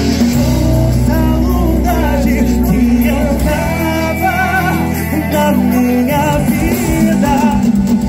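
Loud Brazilian popular dance music with singing, running steadily with a band-style accompaniment.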